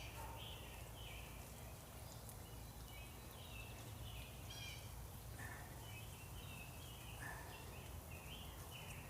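Faint birds chirping, many short repeated notes scattered throughout, over a steady low outdoor background noise.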